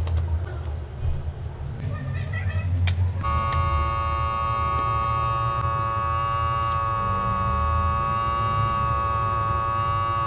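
A few light clicks of a screwdriver on the phone display's screws, then, about three seconds in, a steady electric buzz from a phone-screen separator machine's vacuum pump starts abruptly and holds unchanged.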